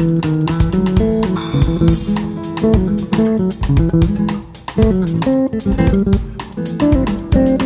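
Instrumental music: acoustic guitar playing a quick run of plucked notes over electric bass.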